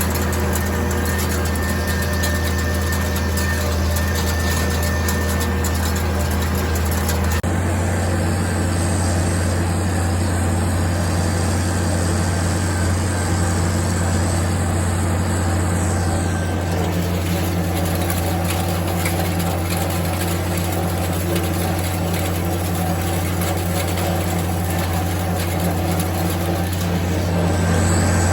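Farmall 1456 tractor's diesel engine running steadily under load during hay work, a constant low drone. The drone shifts abruptly about seven seconds in.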